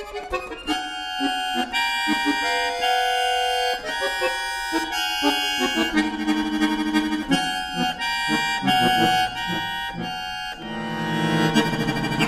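Solo concert accordion playing contemporary classical music: a quick run of short, detached chords and notes in the middle and upper register, then, about ten and a half seconds in, a dense low chord cluster that swells louder.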